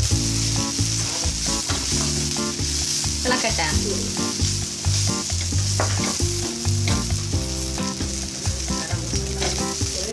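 Sliced onions, green chillies and spice powders sizzling in a frying pan, with a wooden spoon stirring and scraping them through the pan.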